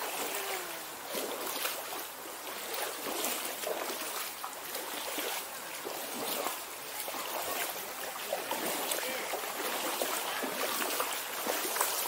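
Stream water running and splashing, a steady rushing hiss with irregular small splashes.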